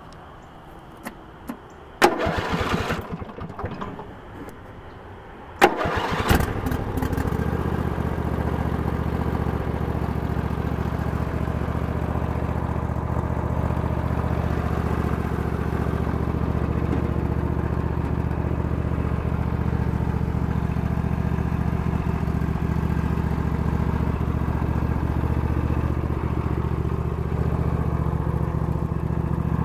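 Murray riding mower's engine being started: the starter cranks about two seconds in without the engine keeping running, cranks again about five and a half seconds in, and the engine catches. It then runs steadily at an even speed.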